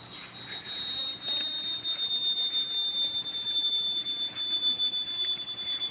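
Loud, steady high-pitched whistle of unknown origin, made of two close tones held without change. It swells in over the first second or two.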